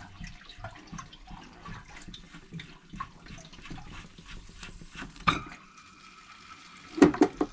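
Water dripping and trickling at the water line fitting at the bottom of an RV water heater as it is worked loose. There is a knock about five seconds in and a few sharp clicks near the end.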